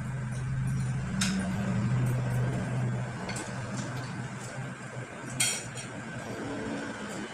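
Tableware clinking while eating by hand: a sharp clink about a second in and a louder one past the middle, with a few fainter ticks, over a steady low hum.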